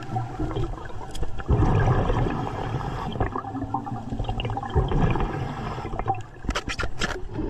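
Underwater bubbling and gurgling from a diver's breathing, with a few short sharp clicks near the end.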